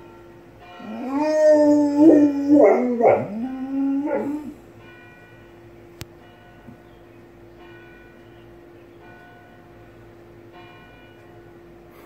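A dog howling along with church bells: one loud howl that rises and falls in pitch, lasting about three and a half seconds. The bells go on ringing after it, struck about every second and a half over a steady hum, with a single sharp click near the middle.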